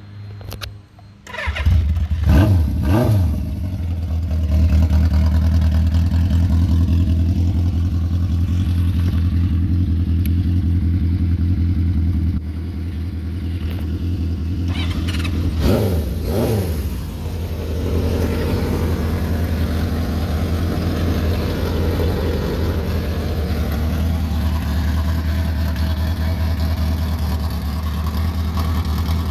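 1977 Honda CB550F Super Sport's air-cooled inline-four engine starting and settling into a steady idle. It is blipped twice right after it catches, and twice more about halfway through, then idles on.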